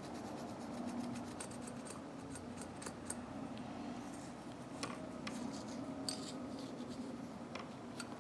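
Steel wool wrapped on a drill bit scrubbing inside the head of a Stanley 89818 ratchet: a quiet scratchy rubbing with scattered small metallic ticks, cleaning old grime out of the grooves.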